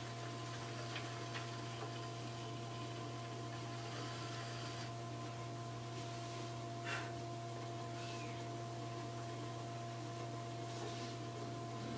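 Electric potter's wheel running with a steady hum, a leather-hard clay pot spinning in a Giffin Grip while a trimming tool scrapes it faintly now and then; a brief click about seven seconds in.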